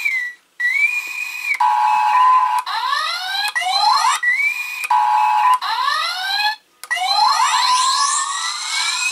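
Electronic sound effect from the Playmates Star Trek U.S.S. Enterprise toy's speaker: a high held tone, then a lower one, then a run of rising sweeps, the pattern repeating and ending in a long rising sweep, with short breaks about half a second in and near seven seconds. The owner takes it for the original TV series' warp drive sound.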